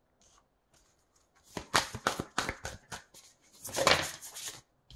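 Oracle cards being handled: a quick run of sharp card snaps, about six a second, then a papery rasp lasting about a second as cards slide against one another.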